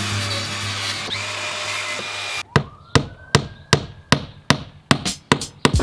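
A hammer driving a nail into timber weatherboard cladding: about nine sharp strikes in a steady rhythm of roughly two and a half a second, starting about two and a half seconds in. Before them there is a steady noisy whir.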